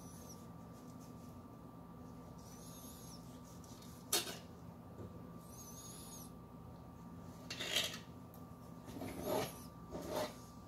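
Fillet knife working on a plastic cutting board: a sharp tap about four seconds in, then a few short scraping strokes near the end, over a steady low hum.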